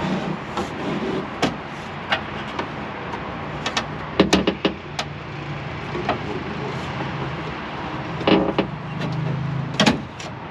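Loose glass door-window pane clicking, knocking and scraping against the bare sheet-metal door frame as it is worked down into a mini truck's door, with a burst of sharp knocks about four to five seconds in and more near the end, over a steady low hum.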